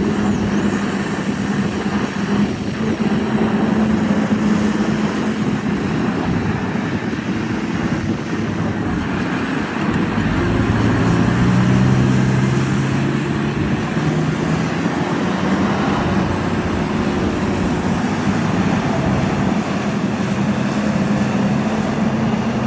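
Heavy vehicle engine running steadily in a continuous rumble; about ten seconds in, its note drops lower for a few seconds, then returns to the earlier pitch.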